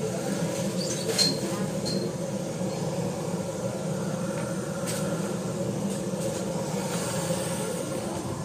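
Busy market crowd: many voices of sellers and buyers blending into a steady hubbub, with a few short clicks and clatters about a second in, at two seconds and at five seconds.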